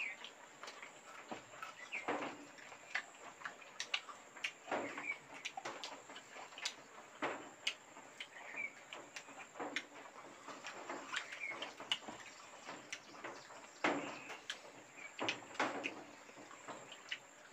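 Close-up eating sounds: chewing and lip-smacking with many small mouth clicks, and a few louder chews about 2, 5, 7 and 14 seconds in.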